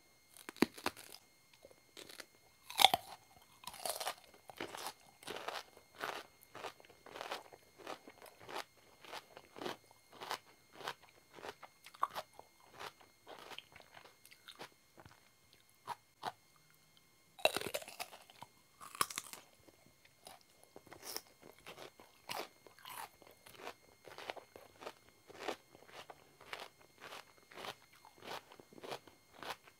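Raw cucumber being bitten and chewed close to the microphone: loud crisp crunching bites at the start and again about halfway through, with steady wet crunching chews at about two a second between and after them.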